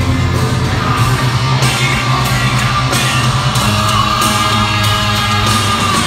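Live hard rock band playing loud, with electric guitars and a drum kit, heard from the audience.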